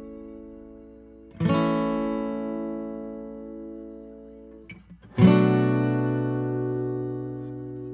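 Acoustic guitar chords strummed and left to ring, a new chord about a second and a half in and another about five seconds in, each fading slowly. A short scratch on the strings comes just before the second chord.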